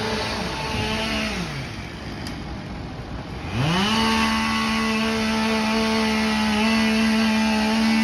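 Chainsaw running: it winds down about a second and a half in, then is throttled up quickly near the middle and held at high speed to the end.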